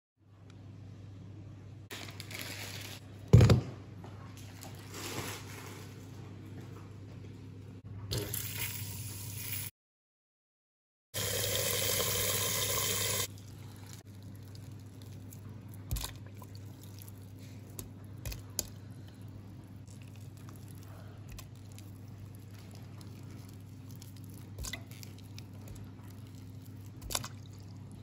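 Water poured or running into a steel bowl of tamarind for about two seconds midway, with a sharp knock a few seconds in and scattered small clicks and handling sounds. A steady low hum runs underneath.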